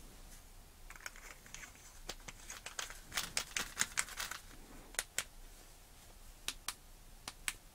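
Faint, irregular small clicks and light rustling from handling a metal LED flashlight as its tail cap is screwed onto the battery tube over a paper-wrapped Li-ion cell. The clicks come thickest through the middle.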